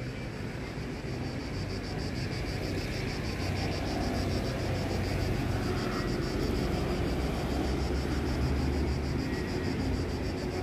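Insects chirping in a steady, rapid, high-pitched pulse, over a steady low rumble.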